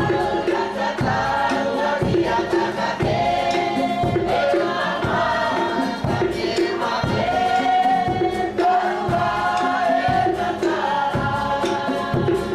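Music: a choir singing in harmony over percussion with a steady beat.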